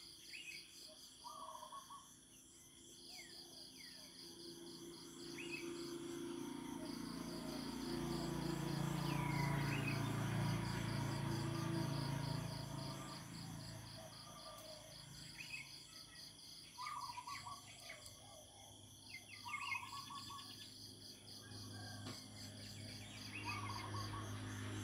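Insects chirping in a steady pulsing chorus, with scattered short bird calls. A low rumble swells and fades over several seconds in the middle.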